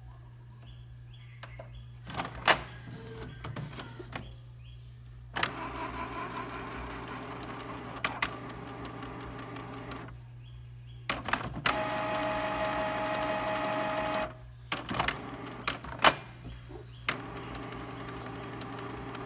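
Canon PIXMA MP287 inkjet printer running its cleaning cycle to purge air from the continuous ink system's supply tubes. Its motors whir in two stretches, the second with a steady whine, with sharp clicks and clunks of the mechanism between them.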